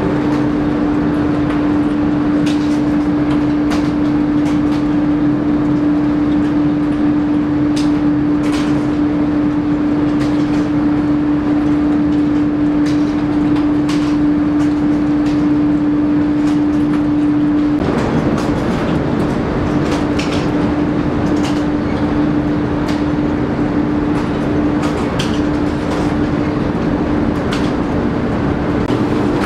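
Tea-factory processing machinery running: a loud, steady electric-motor hum with one clear tone over a mechanical rattle, with scattered clicks and knocks. A little past halfway the hum's tone fades back and the rattle comes up.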